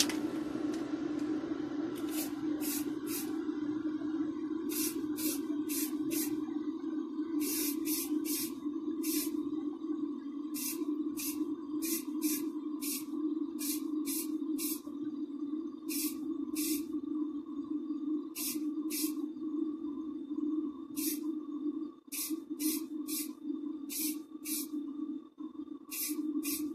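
Aerosol spray can of yellow paint hissing in short bursts, two to four at a time, laying on light coats. Under it the spray booth's extractor fan hums steadily.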